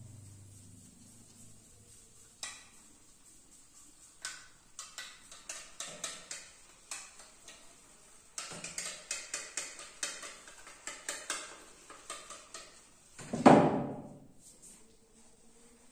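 Shaving brush whisking lather in a small stainless-steel bowl: quick clinks and scrapes of the brush against the metal, coming in runs of several a second. One louder, longer noise near the end.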